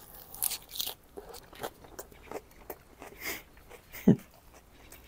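Someone biting into and chewing a lettuce wrap filled with beef cheek, kimchi and raw garlic: irregular crisp crunches and wet chewing clicks, with a brief low sound about four seconds in.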